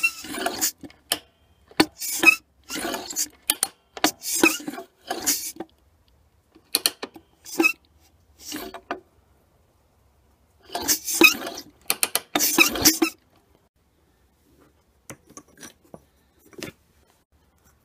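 Metal scraping and clacking as the throttle slide of a Mikuni carburettor is worked up and down in its bore, in irregular clusters of short strokes, with a few fainter clicks near the end.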